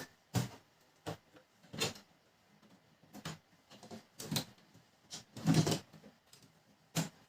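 Irregular clicks and knocks of plastic and metal printer parts being handled and fitted during a fuser unit swap, about seven separate knocks with a longer scrape a little past the middle.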